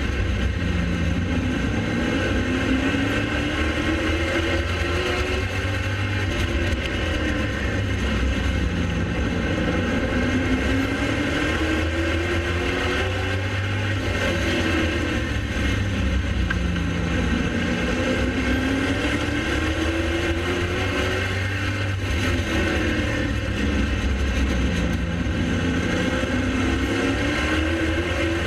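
Pro late model race car's V8 engine at racing speed, rising in pitch for several seconds along each straightaway and dropping off into the turns, about every seven seconds, over a steady low rumble.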